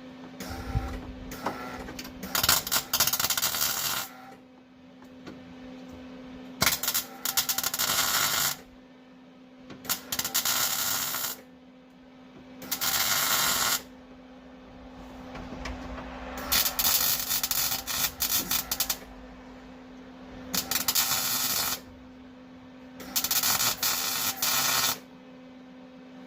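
Welding arc crackling in about seven short bursts of one to two and a half seconds each while a floor patch is tacked in, with a steady hum underneath.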